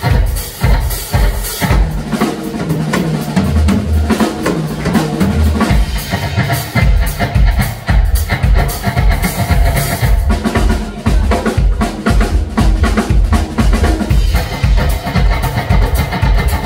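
Live electric blues band playing loud, with an amplified box-bodied cigar-box-style guitar over a full drum kit driving on kick and snare. The kick drum thins out for a few seconds about two seconds in, then the full beat returns.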